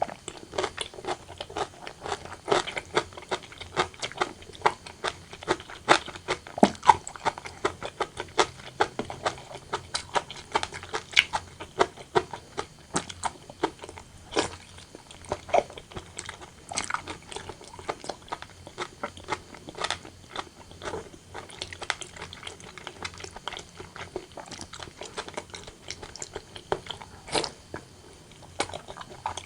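Close-miked eating: wet, sticky chewing and smacking of braised pork belly and rice, with many irregular clicks and bites.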